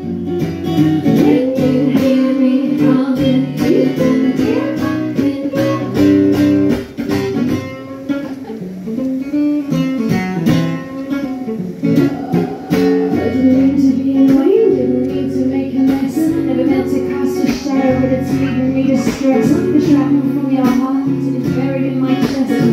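Live band music: a strummed acoustic guitar and a woman singing, with gliding vocal lines over steady chords.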